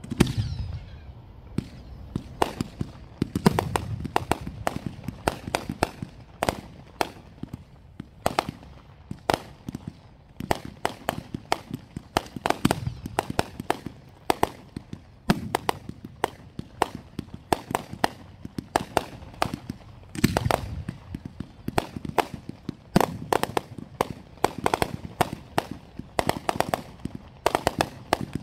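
Aerial fireworks going off in a rapid, irregular barrage of sharp reports and crackle as shots launch and break overhead. Deeper booms come every few seconds, the first right at the start.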